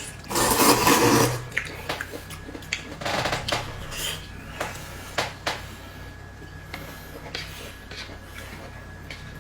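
Dishes and utensils being handled at a table: a loud scrape about half a second in, then scattered clicks and clinks.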